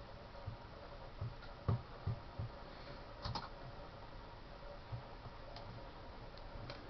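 Faint, scattered clicks and soft knocks of a computer mouse and keyboard being worked, over low steady room noise with a faint hum.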